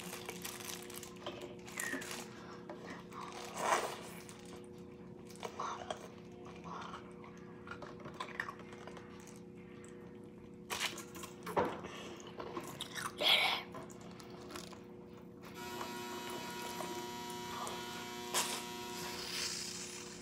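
Intermittent crunching, biting and chewing of a frozen jelly cup, with crackling of its plastic cup and paper towel, over a steady low hum. About three quarters through, a second steady hum with several tones joins for a few seconds.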